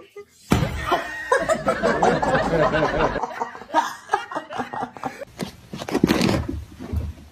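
Laughter: snickering and chuckling that starts about half a second in and is loudest for the first few seconds, then breaks up into shorter, sparser sounds.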